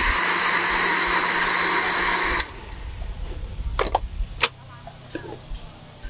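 Electric countertop blender running steadily at full speed, blending a fruit shake, then cutting off abruptly about two and a half seconds in. A few sharp knocks follow as the plastic jug is handled and lifted from the base.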